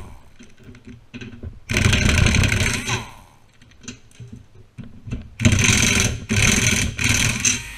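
A handheld power tool, such as an impact driver or drill, runs in short bursts during disassembly: one burst of about a second, then three more close together near the end, its motor falling in pitch as it winds down.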